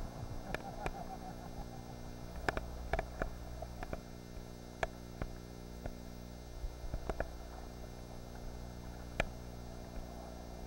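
Muffled wash of choppy sea water around a kayak, with scattered sharp knocks and clicks, over a steady electrical hum.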